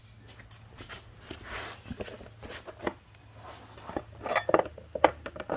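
Soft handling noises, scattered scuffs and light taps, thickest near the end as a hand is laid on the mini bike's plastic belt cover. A low steady hum runs underneath.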